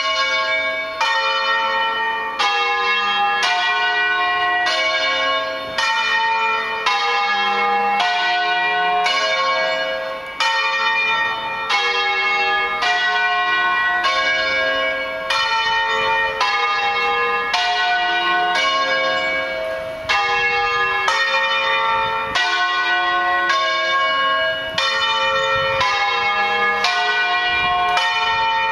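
The five balanced, electrified church bells of the Basilica di San Francesco in Bologna, tuned D-F-G-A-C, rung in the Bolognese doppio style. Loud, clanging strokes follow one another without a gap in a steady, repeating pattern.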